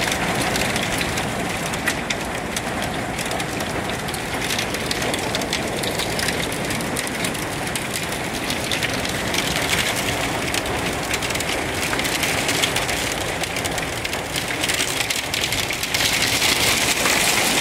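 Hail pelting down on pavement and parked cars: a steady, dense clatter of countless small impacts, a little louder near the end.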